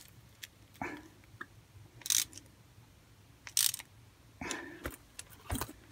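Small hand ratchet clicking in several short bursts, with light metal handling knocks, as the float bowl bolt of a mower carburettor is tightened by hand.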